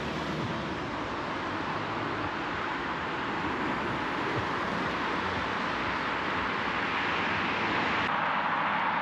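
Steady rush of road traffic on a city street, growing slowly louder.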